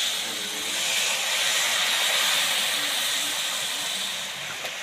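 Wet ground-spice masala paste sizzling as it hits hot oil and fried onions in a kadai, a dense steady hiss that eases off a little near the end.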